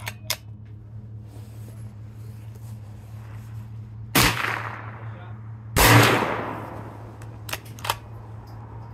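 Two rifle shots about a second and a half apart, each with a long echoing tail, the second the louder. Near the end come two sharp metallic clicks of a bolt action being worked.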